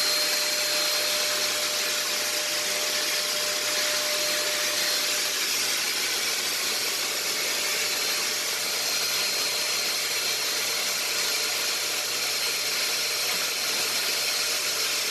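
JML Blast Vac 2 vacuum cleaner running steadily as it sucks cobwebs and dust from a ceiling, an even rushing noise with a faint high whine.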